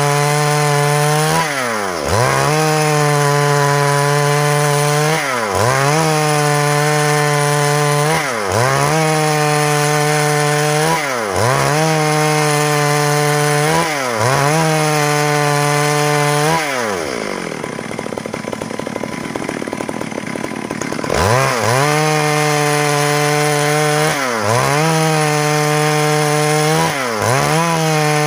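Stihl MS 382 two-stroke chainsaw cutting into a log at high revs, its pitch dipping briefly about every three seconds. About two-thirds of the way through, it drops to idle for about four seconds, then revs back up and cuts on.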